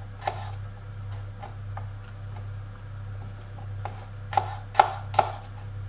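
Knife cutting an apple into small pieces on a chopping board: scattered taps of the blade on the board, with three firmer knocks near the end. A low steady hum runs underneath.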